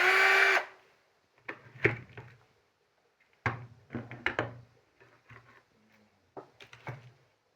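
A loud, pitched whir lasting about half a second, rising slightly as it starts, then irregular knocks and clatters of hard objects being handled.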